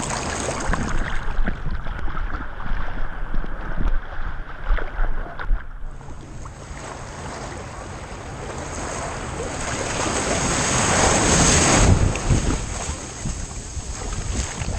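Ocean surf and water rushing, heard from a GoPro on a dog's back with wind rumbling on the microphone. A wave builds to its loudest about twelve seconds in, then falls away.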